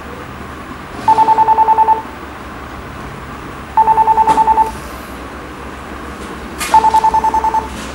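Mobile phone ringing: three trilling rings of about a second each, a couple of seconds apart.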